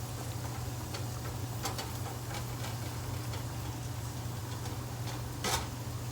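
Minced garlic sizzling faintly in melted butter in a pan while being stirred, with a few sharp clicks of the utensil against the pan, the loudest near the end. A steady low hum runs underneath.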